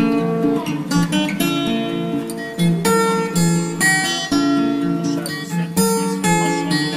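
Acoustic guitar music: strummed chords with ringing notes in a steady rhythm.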